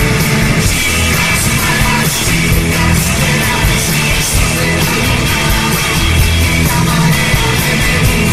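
Live rock band playing: electric guitars over bass and drums keeping a steady beat.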